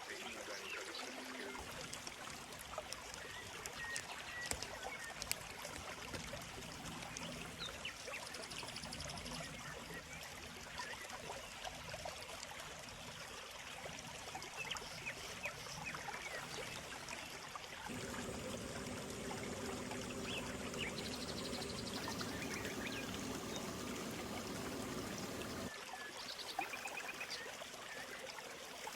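Shallow stream babbling steadily, with faint short chirps of small birds scattered through it. About eighteen seconds in, a louder low steady sound with a few held tones joins and stops abruptly some eight seconds later.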